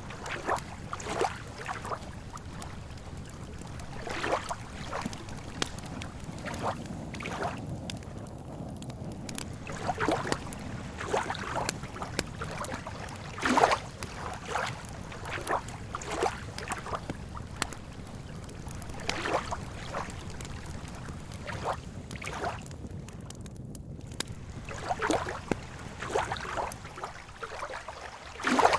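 Small lake waves lapping at the shore in irregular gentle splashes, some louder ones now and then, over a steady low rumble of wind.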